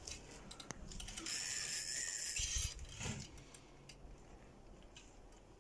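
A fishing reel working under load while a large fish is played on a bent rod: a steady mechanical whirr lasting about a second and a half, with a few scattered clicks around it.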